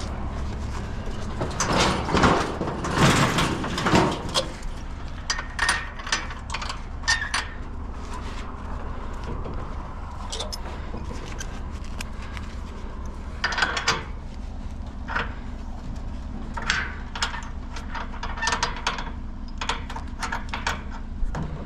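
Scrap metal clanking and rattling as it is handled and loaded, loudest in a burst of clatter a couple of seconds in, then scattered knocks and clicks, over a steady low hum.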